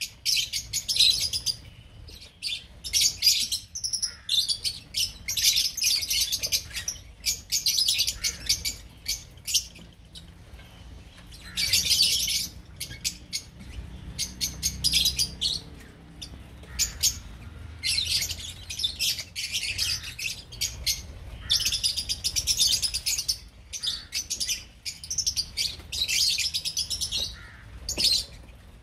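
A flock of lovebirds chattering: rapid, high-pitched chirps in dense bursts, separated by short lulls.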